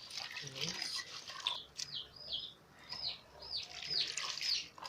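A bird calling: a run of short high notes, each dropping in pitch, repeated about twice a second from a second and a half in. Faint sloshing of water underneath.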